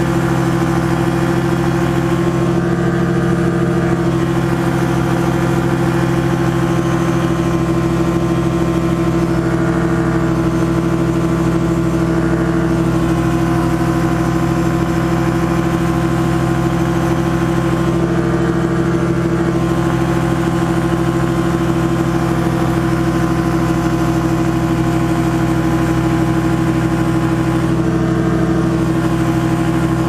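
Challenger ultralight aircraft's engine and propeller running steadily in cruise flight: a constant drone with no change in power.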